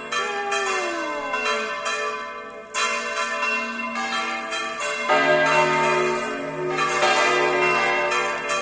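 Church bells swung full circle (Valencian volteo), several bells clanging together. The strikes come irregularly, about two a second, and each rings on into the next.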